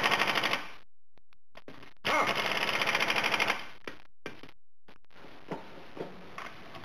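Air impact wrench hammering in short bursts as it runs down the bolts holding the driveshaft to the rear pinion flange: one burst ending about half a second in, and a second of about a second and a half starting about two seconds in, with a few light clicks of socket and bolts between.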